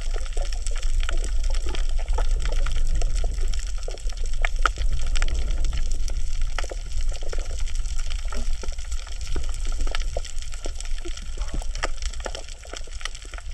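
Underwater coral-reef soundscape: a dense, irregular crackle of small clicks and snaps over a steady low rumble of water movement. The crackle is the "michi-michi" sound that the uploader takes to be the coral breathing.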